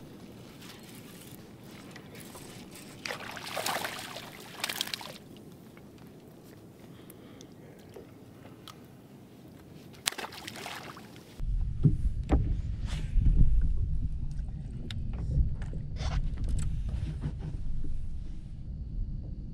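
Lake water lapping and sloshing against a fishing boat's hull, with a couple of brief louder hissing spells. Partway through, a loud low wind rumble on the microphone takes over, with scattered sharp clicks and knocks.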